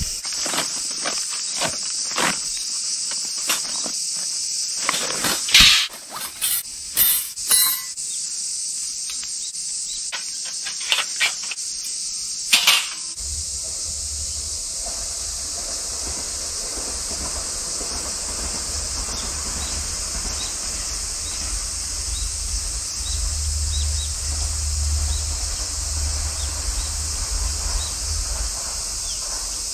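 A steady high chorus of insects, higurashi cicadas among them, with handling noise over it: clicks, scrapes and several sharp metal clatters about five to eight seconds in and once more near thirteen seconds, as a fire sheet is laid on gravel and a folding metal fire stand is set up. After that the handling stops and a low steady rumble joins the insect chorus.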